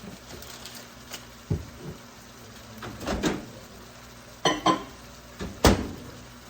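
Kitchenware being handled: a handful of separate knocks and clinks, two quick sharp ones about four and a half seconds in and the loudest near the end.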